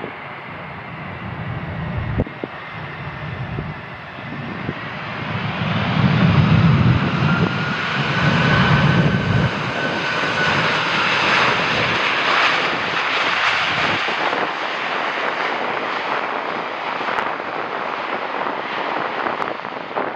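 Jet airliner passing close on its landing approach: a high engine whine over a rushing jet noise that builds to its loudest about six to ten seconds in, then carries on as a steady rush.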